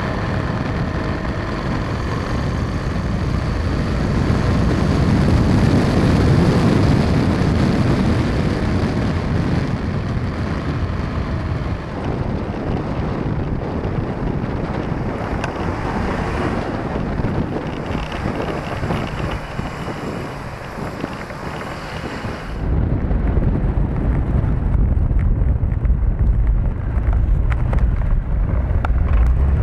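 Motorcycle engine running, with heavy wind noise on the microphone. About three-quarters of the way through the sound changes suddenly: the hiss drops away and a louder low rumble takes over.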